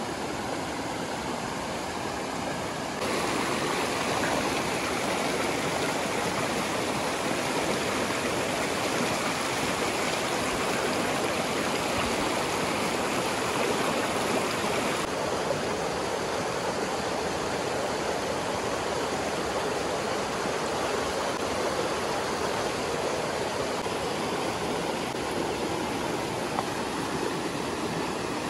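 River water rushing, a steady noise that gets louder about three seconds in and changes tone again around fifteen seconds.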